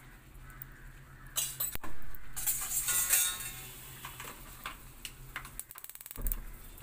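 A steel slotted ladle clinking against a kadai, with a hiss of butter and chaat masala sizzling in the pan for a second or two, about one and a half seconds in. A low thump comes near the end.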